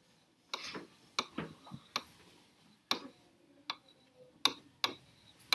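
Plastic stylus tip clicking and scraping on the glass of an interactive touchscreen display while a word is handwritten: about nine short, irregular ticks.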